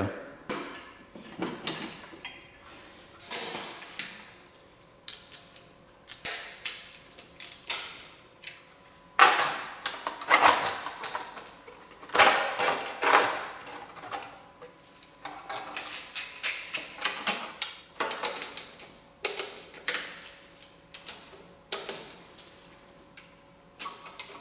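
Hand-tool work on an engine: a socket ratchet clicking in short runs and sheet-metal parts clinking and knocking as a heat shield is fitted and bolted down.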